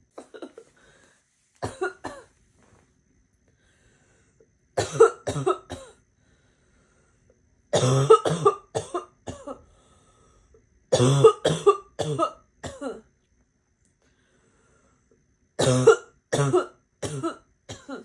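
A girl's barking cough in a coughing fit: bouts of several harsh coughs in quick succession, a new bout every few seconds.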